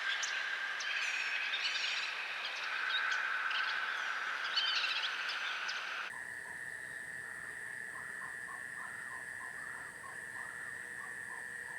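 Forest ambience. Birds chirp over a steady insect drone, then about six seconds in it cuts abruptly to a steady high insect trilling with repeated short, lower calls, a few each second.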